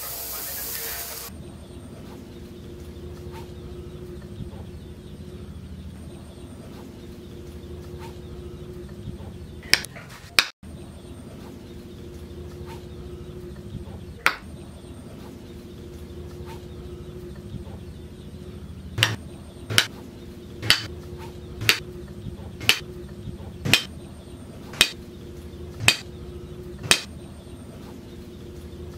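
A brief hiss as the hot machete tang burns into the wooden handle, over a faint steady hum. Then a few sharp knocks, and later a regular run of about nine knocks, roughly one a second, as the handle is driven onto the tang.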